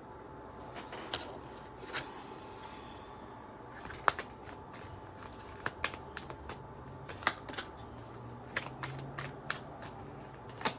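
Tarot cards being shuffled and handled: sharp, irregular snaps and flicks of card stock, sparse at first and coming thick and fast from about four seconds in.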